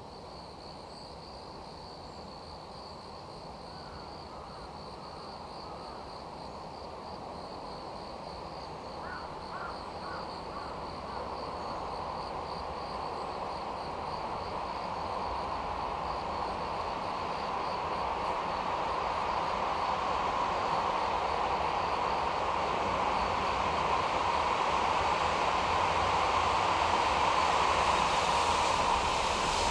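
Electric-locomotive-hauled freight train approaching through a tunnel: its rumble grows steadily louder until the locomotive reaches the tunnel mouth near the end.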